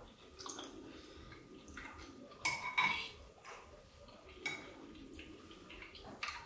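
Metal spoons scraping and clinking against small earthenware cooking pots as food is scooped out. There are several short separate strokes, the loudest a pair about two and a half to three seconds in.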